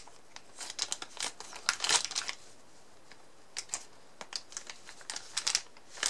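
Thin clear plastic bags crinkling as the oscilloscope probes packed inside them are handled, in irregular bursts with a short lull about halfway through.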